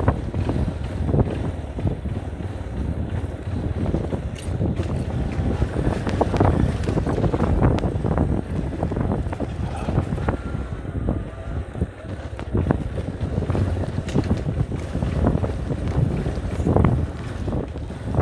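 Wind buffeting the microphone with a steady low rumble and irregular gusts and knocks.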